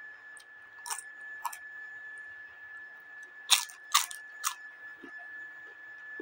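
Crisp papad being bitten and crunched in the mouth: five short, sharp crunches, the two in the middle loudest. A steady high, thin whine runs underneath.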